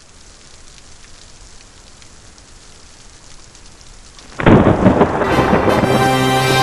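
Thunderstorm sound effect: a faint steady hiss of rain, then a sudden loud thunderclap about four and a half seconds in. Sustained music tones come in under the rumble near the end.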